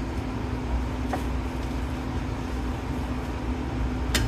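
Metal lathe with a 1 hp, 110 V motor running steadily in its fastest speed, a constant hum with a steady tone. There is a sharp click near the end.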